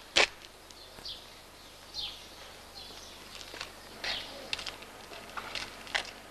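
Birds chirping in short, scattered calls over a quiet courtyard hush, with a sharp knock just after the start and a few light steps.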